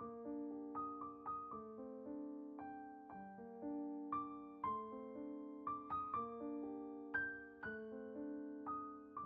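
Gentle background piano music, single notes and chords struck a few times a second, each ringing and fading.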